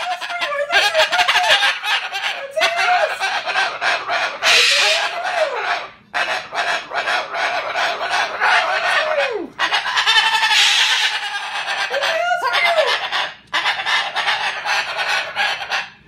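Moluccan cockatoo making strange, harsh, raspy calls whose pitch arches up and falls away, in long runs broken by a few short pauses: its display of disapproval at a cardboard house.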